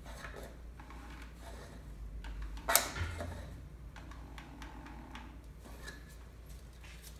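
Oil filter housing cap being threaded down onto the engine's filter housing by hand and with a cap wrench: faint scraping and small clicks, with one sharp clack nearly three seconds in.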